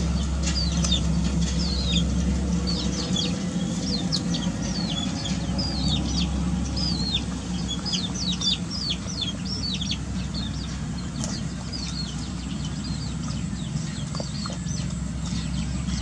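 Young chickens peeping over and over: rapid, high, short cheeps that fall in pitch and thin out near the end, over a steady low hum.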